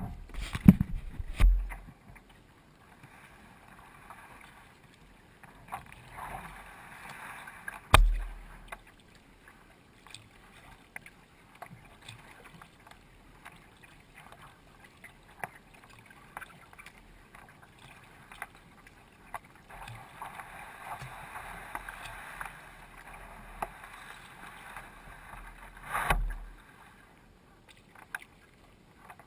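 Sea kayak being paddled, heard from a camera on its deck: water swishing and splashing with the strokes. A few sharp low thumps stand out, a cluster at the start, one about eight seconds in and one near the end.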